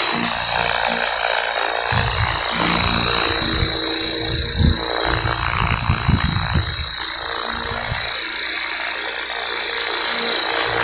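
Electric 500-size RC scale UH-1H helicopter hovering and flying low on a 6-cell battery, its main shaft bearing freshly replaced: a steady high motor and gear whine over the rotor noise. Low gusts of wind buffet the microphone in the middle.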